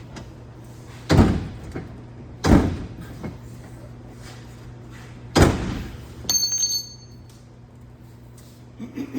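A Polaris Ranger Crew's steel dump bed being shoved down hard onto its new latch bracket: three heavy bangs a second or more apart, with a brief high-pitched ring just after the third.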